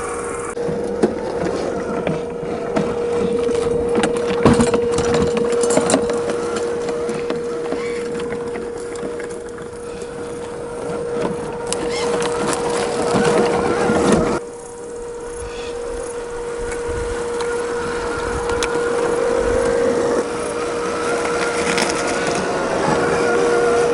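Small 55-turn brushed electric motor of a Tamiya CC-01 RC truck whining steadily through its drivetrain. Tyres crunch, click and knock over rough ground.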